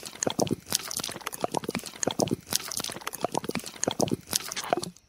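Thick wet cement slurry pouring from a small steel cup onto sand: a dense, irregular run of wet squelches and glugs that stops just before the end.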